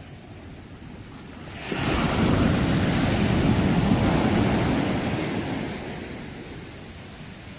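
Ocean wave breaking on the shore: the surf noise swells suddenly about two seconds in, stays loud for a few seconds, then washes back and fades.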